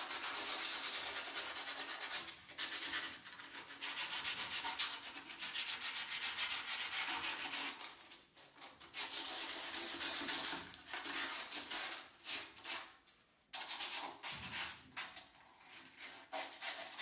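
Sandpaper rubbed rapidly back and forth over rusted steel rebar, scouring the rust off the bars, in quick rasping strokes with a few short pauses.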